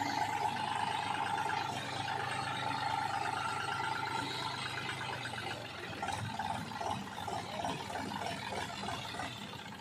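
Diesel engine of heavy earth-moving machinery running steadily, its note changing and becoming more uneven about six seconds in.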